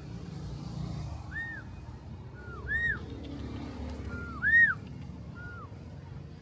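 Black-collared starling whistling: a run of short, clear notes that each rise and fall, alternating higher and lower ones, with two loud notes in the middle. A low traffic rumble runs underneath.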